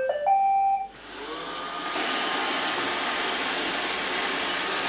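iRobot Roomba 790 robot vacuum starting a cleaning run: a short tune of electronic beeps, then its motors spin up with a rising whine about a second in and settle into a steady whir of vacuum fan and brushes.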